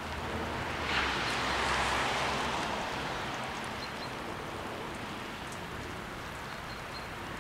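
Steady hiss of rain falling on a wet road and track bed. The hiss swells about a second in, then eases off over the next few seconds.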